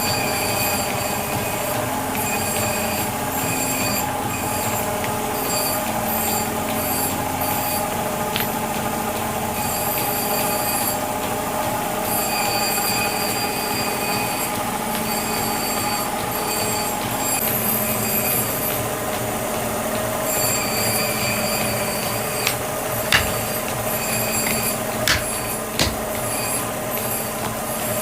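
Metalworking machine running on an iron hammer, with a high metal-on-metal squeal that comes and goes every second or two. A few sharp knocks sound near the end.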